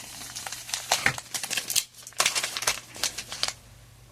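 Foil booster-pack wrappers being handled, crinkling in irregular bursts of crackle that die away shortly before the end.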